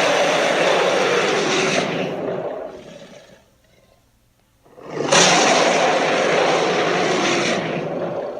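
Two long, rough Tyrannosaurus rex roar sound effects: the first fades out about three seconds in, and the second starts about five seconds in, holds for some three seconds, then trails off.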